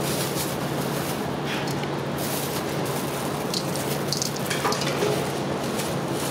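Steady kitchen background noise: an even hiss with a constant low hum beneath it, and a few faint clicks partway through.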